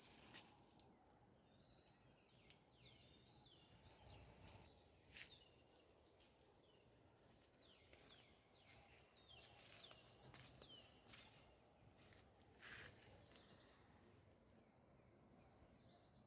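Faint rural ambience: small birds chirping in short, quick, falling notes, repeated throughout, with a few soft clicks or knocks, the clearest about five seconds in and near the thirteen-second mark.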